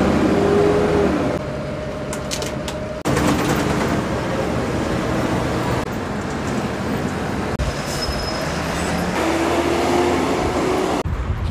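City bus under way, heard from inside the passenger cabin: steady engine and road noise with a whine that rises slightly in pitch as the bus picks up speed.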